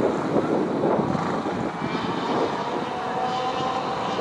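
Several ROK Senior racing karts' 125 cc two-stroke engines buzzing together in a steady mixed drone as the pack runs around the track.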